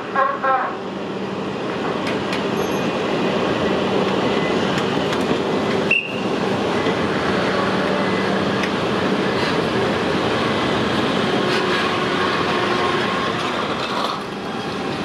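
Shinkansen cars rolling slowly along factory track, a steady rumble and rattle of steel wheels on rails. A short high wheel squeal about six seconds in.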